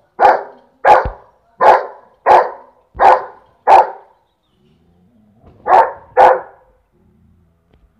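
St Bernard barking at a peafowl: six loud single barks about two-thirds of a second apart, a pause of nearly two seconds, then two more barks in quick succession.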